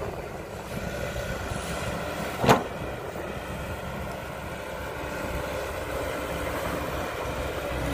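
Cat 312B hydraulic excavator working, its diesel engine running steadily as the bucket digs into soil. A single short, loud knock about two and a half seconds in.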